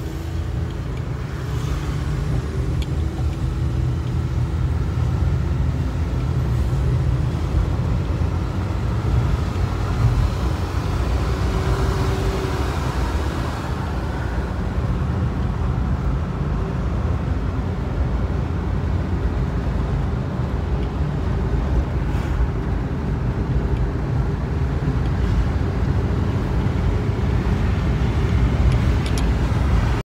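Road noise inside a moving car: a steady low rumble of engine and tyres, with a louder hiss that swells for a few seconds around the middle.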